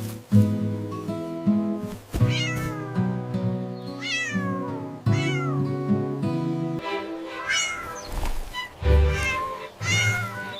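Background music with cat meows over it, several meows falling in pitch.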